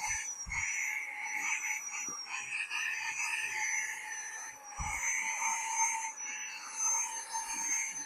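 Cordless handheld vacuum cleaner running on its lower power setting with a crevice nozzle on carpet. A steady high motor whine sits over a rushing suction sound that swells and fades, with a couple of short low thumps.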